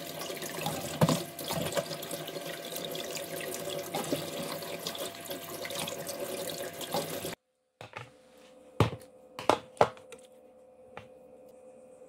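Kitchen tap running onto button mushrooms in a plastic bowl as they are rinsed by hand, splashing steadily; it cuts off suddenly about seven seconds in. After a short gap come a few sharp clicks and knocks.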